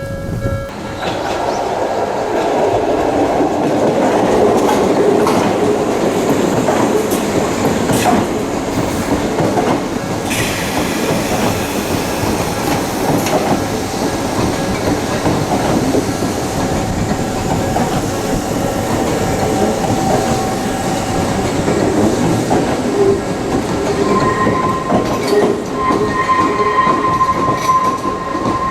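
Odakyu line electric train running slowly over a level crossing, its wheels clattering over the rail joints with a steady heavy rumble. Thin squeals from the wheels come in over the second half, loudest near the end.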